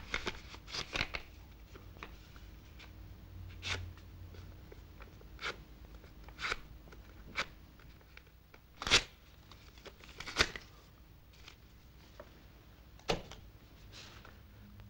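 A small slip of paper being torn up by hand, in a series of short rips about one to two seconds apart, the loudest about nine and ten seconds in.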